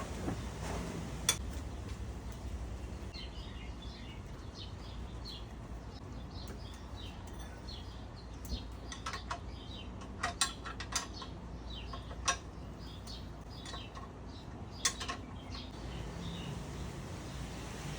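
Scattered sharp metallic clicks and clinks, a dozen or so at uneven intervals, like tools or small metal parts being handled, over small birds chirping in the background.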